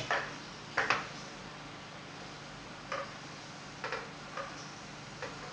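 Wooden spatula knocking and scraping against a frying pan as a thin spiced liquid is stirred: a few light, irregular knocks.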